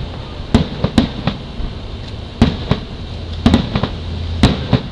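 Fireworks going off: about a dozen sharp bangs in irregular clusters, some close together in quick pairs and triplets.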